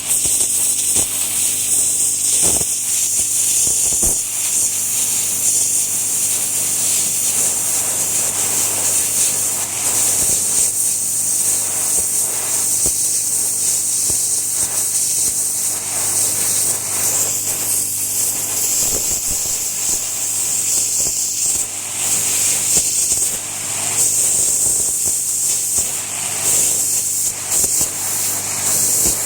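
Landa 3000 psi pressure washer spraying its high-pressure water jet: a steady loud hiss, with a steady low hum from the machine underneath.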